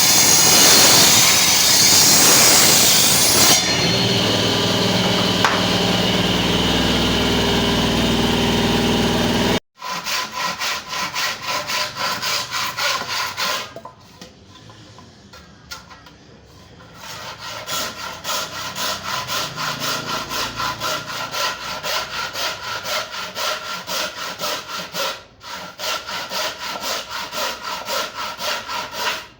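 A motor-driven tool runs steadily, then stops abruptly. A hand saw then cuts wood in steady back-and-forth strokes, about two a second, pausing for a few seconds before carrying on.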